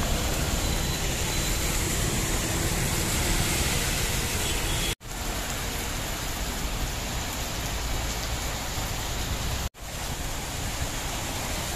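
Heavy rain pouring down as a steady hiss, with street traffic passing in the first few seconds. The sound drops out briefly twice, about five and ten seconds in.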